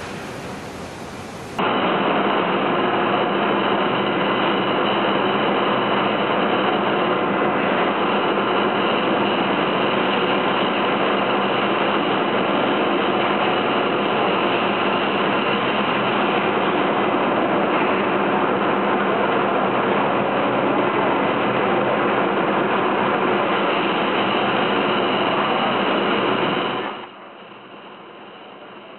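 Steady mechanical running noise of a large vertical lathe (vertical turning machine) and its workshop, an even rush with a faint hum. It starts abruptly about two seconds in and drops away sharply near the end.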